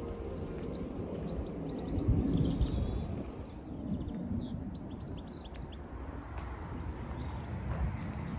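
Small birds chirping and singing in quick, high calls throughout, over a low rumble of wind or handling noise on the microphone that swells about two seconds in.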